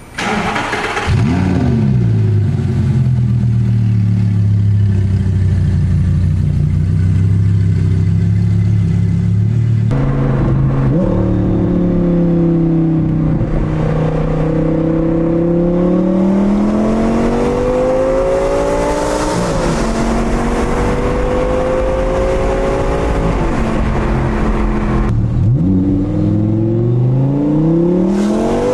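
2012 Audi R8 V10 Spyder's 5.2-litre V10 with an aftermarket exhaust: it starts up with a quick rev flare and settles into a steady idle. About ten seconds in, the car is being driven, and the engine note climbs under acceleration and drops sharply at each gear change, heard from inside the cabin.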